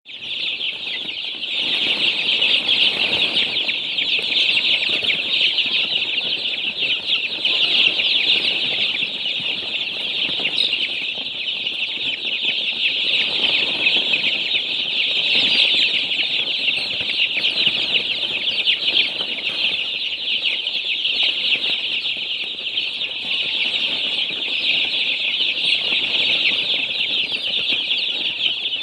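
A dense, continuous chorus of peeping from hundreds of baby chicks crowded together in a brooder, with countless high-pitched peeps overlapping without pause.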